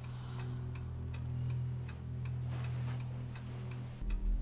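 Steady, even ticking, about three ticks a second, over a low steady hum.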